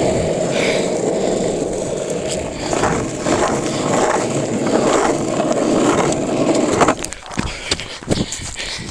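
Longboard wheels rolling over street pavement: a steady rumble that cuts off about seven seconds in, followed by a few short knocks as the board comes to a stop.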